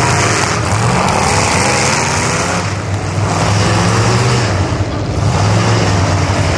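Dodge Ram pickup's diesel engine running loud at high revs, its pitch rising and falling, with brief dips about three and five seconds in.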